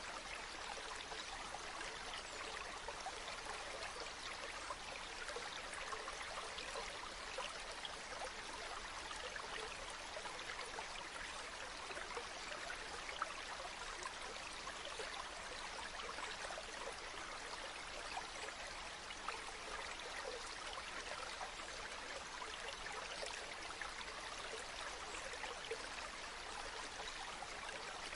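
Water flowing steadily in a stream, an even rushing and trickling with small splashes now and then.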